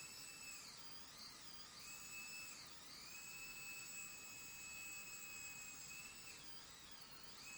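Hydraulic pump motor of a 1/14 scale Liebherr 914 RC excavator, a faint high whine that rises and dips in pitch several times as the machine is worked, holding steady for a few seconds in the middle.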